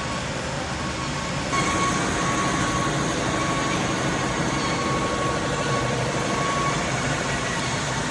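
Factory machinery running: a steady mechanical din with a steady high whine over it, growing louder about a second and a half in.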